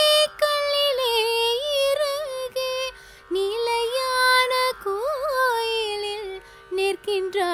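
A woman singing solo in Carnatic style, drawing out long vowels of a Krishna bhajan line with gliding, wavering ornaments on the held notes.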